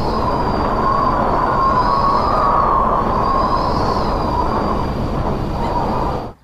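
Loud steady rushing noise with a wavering high whine over it, cutting off suddenly near the end.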